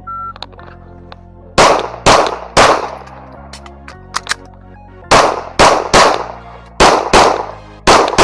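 A shot-timer start beep, then nine pistol shots from a compensated Springfield Echelon fired in quick strings: three, then three more after a pause of about two seconds, then two and a final one, each with a ringing tail. Background music runs underneath.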